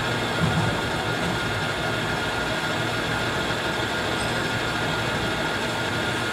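Metal lathe running steadily, turning a shaft held between the chuck and the tailstock centre: a constant motor and gearing hum with a thin steady whine above it.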